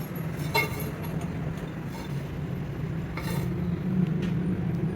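A workshop machine running with a steady low hum, with two sharp metal clinks, one about half a second in and another a little past three seconds.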